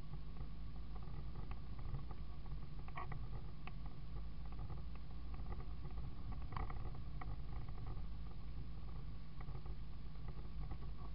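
Isuzu D-Max ute driving slowly over a rough dirt bush track, heard from inside the cab. Its engine and tyres give a steady low rumble with a faint steady hum. Scattered knocks and rattles come as the wheels go over bumps, the clearest about three seconds and six and a half seconds in.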